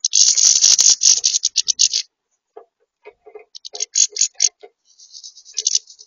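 European goldfinches calling at a seed feeder in three quick twittering runs: the first and loudest at the start, then one near the middle and one near the end. Scratches and taps from their feet and beaks on the plastic tray come through in between.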